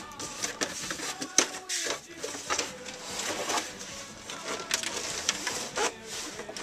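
Cardboard box lid being lifted open: scraping and rustling of cardboard and paper, with several sharp knocks and taps along the way.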